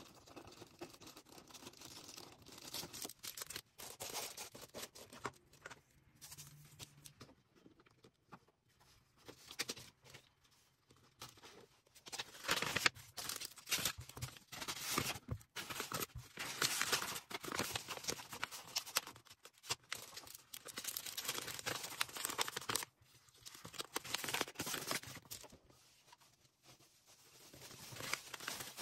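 Order packing by hand: irregular rustling, crinkling and tearing of packaging, with short clicks between, and two quieter pauses.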